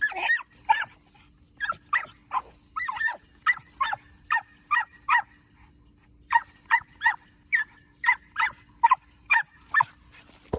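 American pit bull terrier puppy giving rapid short, high-pitched yelping whines, two to three a second, in two runs with a brief pause in the middle: a young pup crying out for a tug rope she wants.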